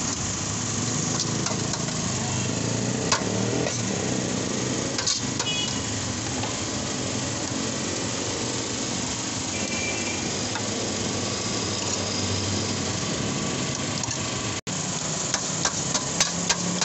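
A steady mechanical hum runs under metal scraping as chicken is shaved off a vertical shawarma spit with a long knife into a steel tray. Near the end, a spoon clicks rapidly against the tray as the meat is gathered, about three clicks a second.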